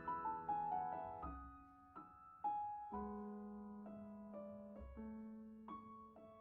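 Background piano music: a soft falling run of notes, then slower single notes and chords left to ring and fade.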